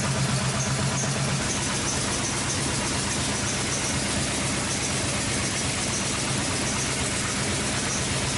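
Chrysler 5.7L Hemi V8 engine idling steadily.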